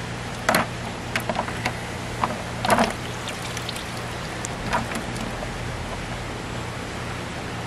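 Cloudy maceration water sloshing, splashing and dripping in a plastic bucket as wolf skulls are lifted out and set back in: a handful of short splashes, the loudest about half a second and nearly three seconds in, over a steady low hum.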